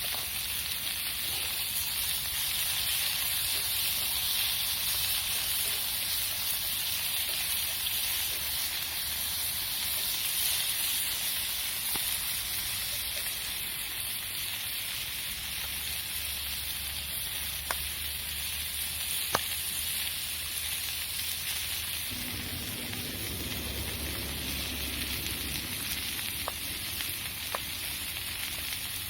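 Wood campfire burning: a steady hiss with a few sharp, isolated pops and crackles.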